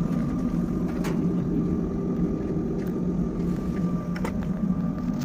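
A machine running steadily: a low hum with a faint, steady higher whine, and a few light clicks.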